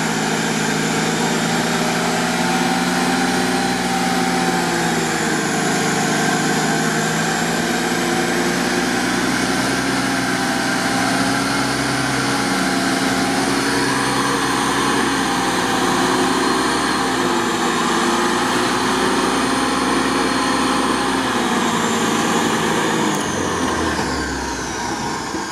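UAZ off-roader's engine running hard under heavy load as the vehicle churns through deep bog mud on its axles, wheels digging in; the revs rise and fall and ease off near the end.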